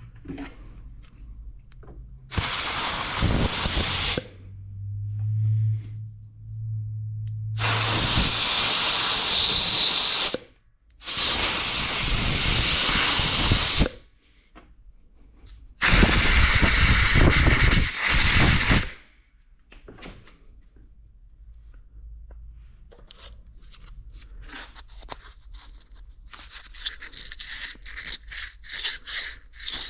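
Four loud hissing blasts, each two to three seconds long, from a pressurized jet of air or cleaner blown through a small-engine carburetor while it is being cleaned. Faint clicks and scraping of small parts follow near the end.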